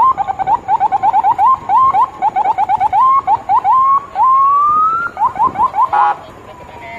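Electronic vehicle siren chirping in quick rising yelps, with one longer rising sweep a little past the middle. A short buzzy horn-like blast comes about six seconds in, then the tone slides down and fades.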